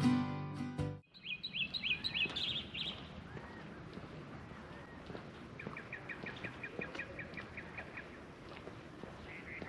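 Intro music cuts off about a second in, leaving outdoor birdsong: first a quick series of high rising notes, then after a pause a run of about a dozen quick repeated notes, about five a second.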